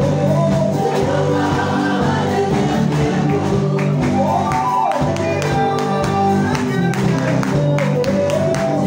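Live worship music: several singers on microphones singing a gospel song over sustained keyboard chords, with drum strikes.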